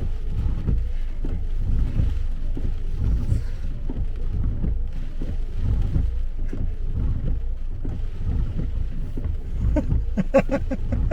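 Low, uneven rumble of a 4x4 on the move.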